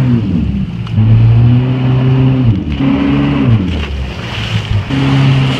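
Jet ski engine driving a flyboard's water jets at high revs. Its note falls and climbs again several times as the throttle is eased and opened, over the rush of water from the wake.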